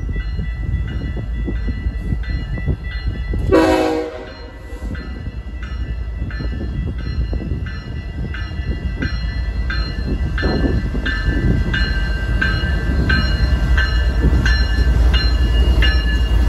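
A freight train's diesel locomotives approach and pass, their rumble growing louder in the second half, with one short horn blast from the lead locomotive about three and a half seconds in. A bell rings steadily throughout, roughly three rings every two seconds.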